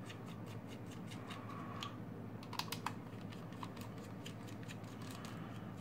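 Small precision screwdriver turning the tiny screws out of the plastic base of a Silvercrest electric salt and pepper mill: light, irregular clicks and ticks, with a few sharper clicks about two and a half seconds in.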